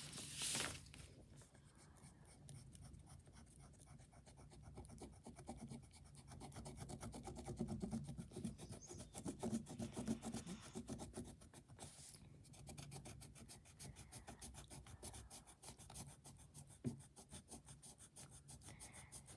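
Pen tip scratching across paper in quick repeated strokes, faint, as a drawing is scribbled and shaded in; the strokes get busier in the middle.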